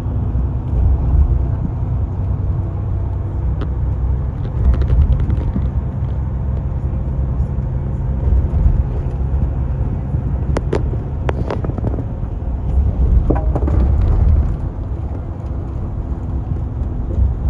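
Inside a moving city bus: steady low engine and road rumble, with a few sharp clicks or rattles about ten to eleven seconds in.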